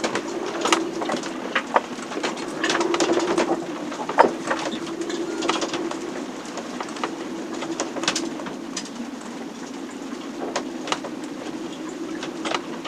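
A sailboat's hull and fittings creaking, clicking and knocking irregularly as the boat works in a storm, over a steady low hum, with a sharper squeaking creak about four seconds in.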